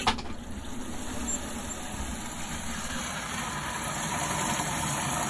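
Outdoor tap turned on with a click, then water running from a garden hose into a plastic watering can, a steady rush that grows slightly louder as the can fills.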